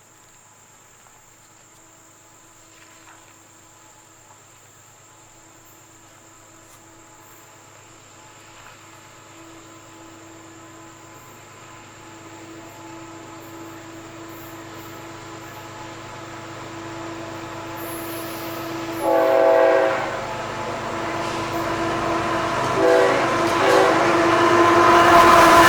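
Approaching CSX freight train led by GE ES44AH and AC4400CW diesel locomotives, growing steadily louder as it nears. The locomotive horn sounds a blast about a second long roughly three-quarters of the way in, two short toots a few seconds later, then a loud sustained blast near the end, a friendly horn show from the engineer.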